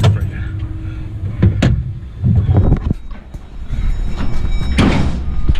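A vehicle engine running with a steady low rumble, with several sharp knocks and clanks and a short burst of noise about five seconds in.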